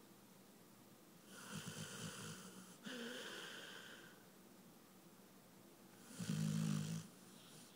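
Snoring in sleep: two noisy breaths in the first few seconds, then a louder, lower-pitched snore about six seconds in.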